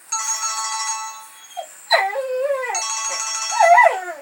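Cell phone ringtone playing, with a boxer puppy crying along to it from about two seconds in, its cries bending up and down in pitch and loudest near the end.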